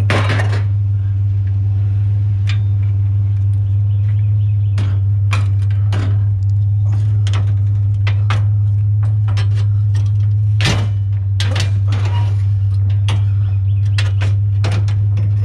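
Pickup truck engine idling with a steady low hum, while loose scrap metal clanks and rattles in many short, sharp knocks as it is handled and loaded.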